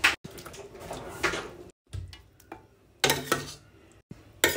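A serving spoon knocking and scraping against a stainless steel cooking pot as lamb korma is spooned onto layered rice: about four short, sharp knocks spread across the few seconds.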